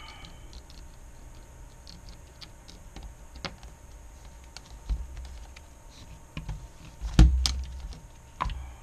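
Small clicks and knocks of hands handling wires, a plastic wire connector and an LCD panel on a workbench, with a louder thud about seven seconds in as the panel is moved.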